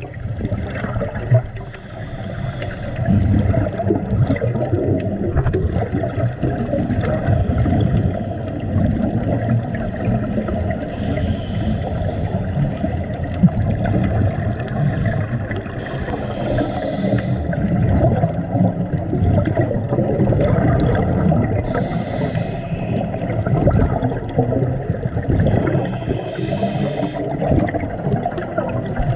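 Underwater sound through a camera housing on a scuba dive: a steady low rumble of moving water, broken about five times, every five seconds or so, by the bubbling hiss of a diver's exhaled breath leaving the regulator.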